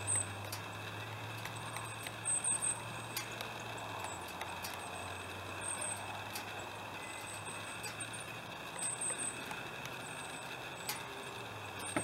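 Camera lens image-stabilizer motor running, picked up by the camera's own microphone: a steady low hum under several steady high whining tones, with light ticks every second or so. Short, very high-pitched bursts come and go several times over it.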